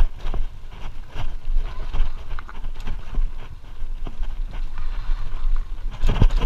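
Mountain bike ridden fast over a rough dirt trail: wind buffeting the microphone, with irregular knocks and rattles from the bike jolting over bumps, louder near the end.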